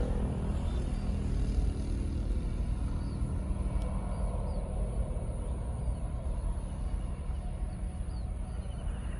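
Distant aircraft engine noise from a plane taking off, a low rumble that slowly fades away, with a few faint bird chirps.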